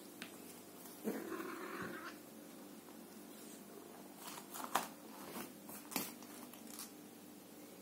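A hairless cat playing with an elastic string: scattered soft taps and rustles of paws and string on carpet and floor, with a short scratchy rustle about a second in.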